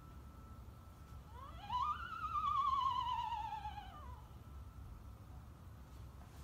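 A small handheld Halloween sound-effect toy plays an electronic wail. About a second and a half in, the pitch sweeps up, then slides slowly down with a fast, even wobble for about two seconds before stopping.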